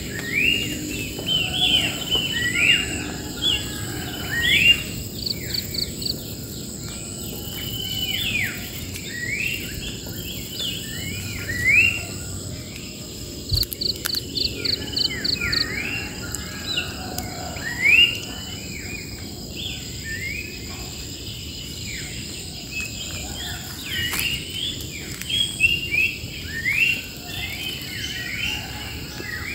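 Wild birds calling and singing continuously in short rising and falling notes, over a steady high insect buzz. Twice there is a quick run of short, high, evenly spaced pips.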